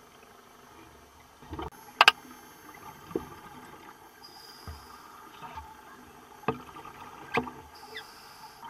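Sharp, irregular clicks and knocks picked up underwater, about seven of them, the loudest a quick double click about two seconds in, over a faint hiss.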